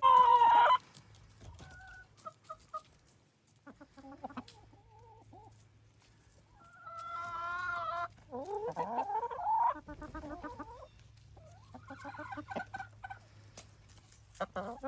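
Backyard chickens clucking and squawking in short bouts, with a loud call right at the start and longer calls about halfway through.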